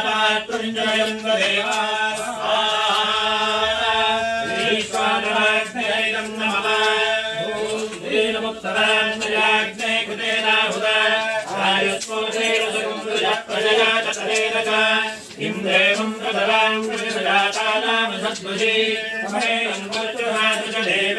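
Mantras chanted in a continuous, steady recitation by voices during a fire ritual, over a steady low held note.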